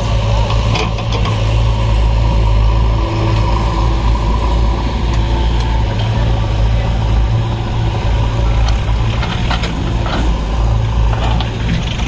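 Heavy diesel engine running steadily with a deep, even drone, broken by a few short knocks.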